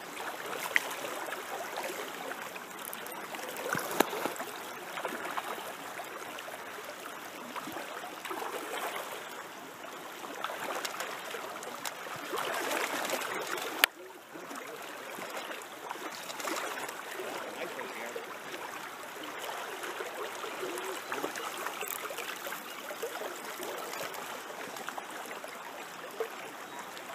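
River current flowing and rippling: a steady rush of water, with a few sharp clicks.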